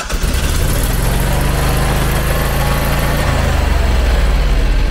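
Generac 14 kW air-cooled standby generator's engine running loud and steady just after starting, heard with the enclosure lid open; its note shifts slightly about three seconds in.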